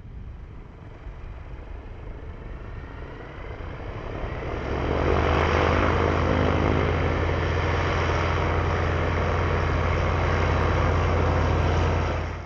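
Zenith STOL CH 701's 100-hp Rotax 912S engine and propeller at takeoff power. It grows louder over the first five seconds, then holds a steady drone, and cuts off suddenly at the end.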